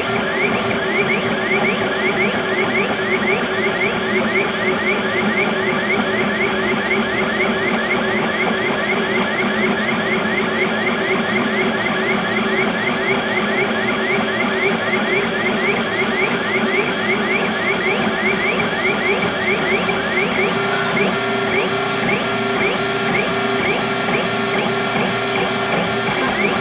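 XYZ da Vinci Mini W+ 3D printer printing: its stepper motors whine in steady tones, broken by quick rising chirps several times a second as the print head moves.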